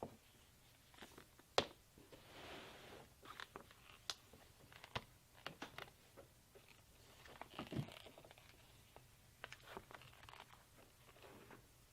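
Faint handling noises at a leather workbench: scattered light clicks and taps at irregular intervals, one sharper than the rest about a second and a half in, with two brief rustling scrapes.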